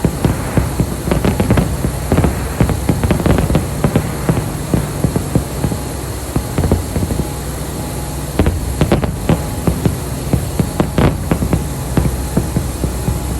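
Fireworks display: rapid crackling and popping bangs, thinning out in the middle and growing dense again after about eight seconds, over a steady low rumble.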